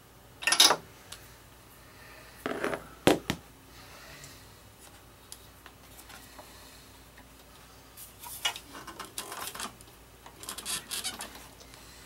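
Metal hand tools clinking and rattling in short bursts while a lawn mower's new spark plug is being fitted and tightened: a sharp clack near the start, two more around the third second, then a longer spell of rattling handling near the end.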